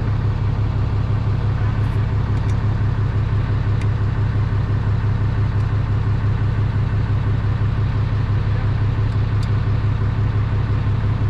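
A running engine or motor making a steady, even low hum. A few faint clicks come through it.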